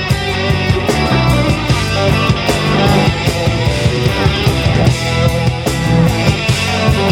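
Rock band playing an instrumental break of a song: electric guitar over bass and drums with a steady beat.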